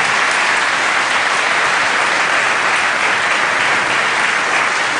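Studio audience applauding, a steady, dense clapping throughout.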